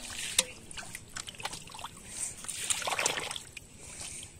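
Catfish wriggling in a shallow muddy puddle: wet squelching and splashing with small sharp pops of mud and water, and a louder slosh about three seconds in.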